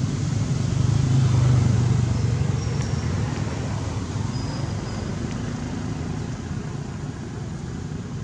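Low rumble of a passing motor vehicle, swelling about a second in and slowly fading away.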